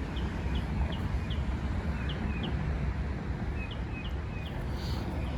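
Small birds chirping: a run of short, high chirps a few times a second, with a few lower slurred notes, over a steady low rumble.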